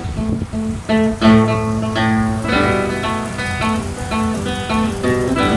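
Background music: guitar playing a quick run of plucked notes and strums.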